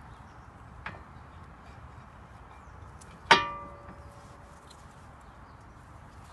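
Brake caliper being fitted back over new pads on the front brake disc. A light click comes about a second in, then a sharp metal clank with a short ringing tail about three seconds in.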